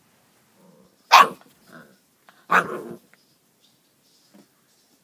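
Husky-mix puppy barking twice, about a second and a half apart, the second bark a little longer.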